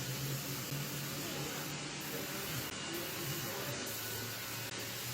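Steady hissing noise with a low hum, and faint voices in the background.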